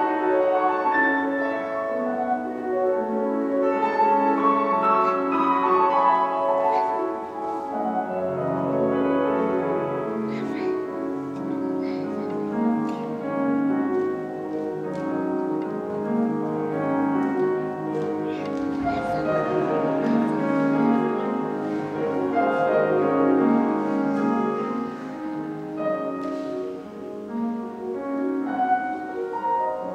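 Piano music, with a low bass note coming in about eight seconds in.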